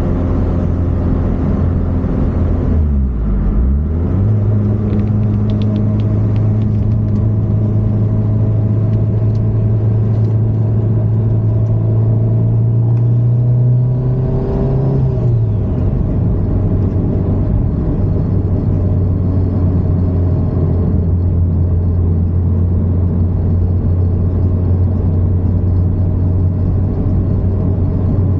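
Mitsubishi Lancer Evolution IX's turbocharged 2.0-litre four-cylinder engine running at steady revs. The revs dip briefly about three seconds in, climb slowly for about ten seconds, then fall back and hold steady.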